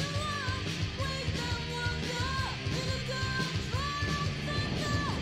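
1980s female-fronted heavy metal song playing, a woman singing over a full rock band.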